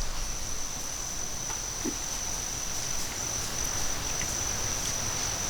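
An insect, such as a cricket, trilling steadily as one thin, high-pitched unbroken tone.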